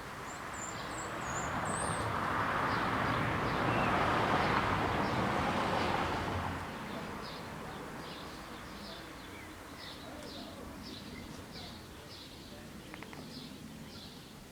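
A vehicle passes by, its noise swelling over a couple of seconds and fading about seven seconds in, while birds chirp.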